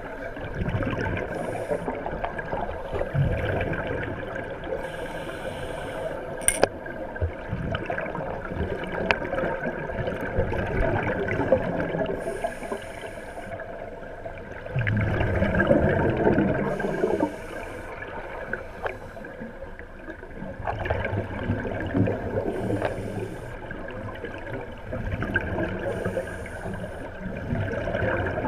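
Underwater sound picked up through a camera housing: scuba divers' exhaled breath bubbling out of their regulators, a muffled gurgling rumble with louder hissing bursts every few seconds.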